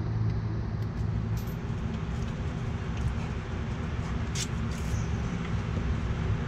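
A motor running steadily with a low hum, with two faint clicks about four and a half seconds in as a plastic wiring connector is worked onto a fog light bulb.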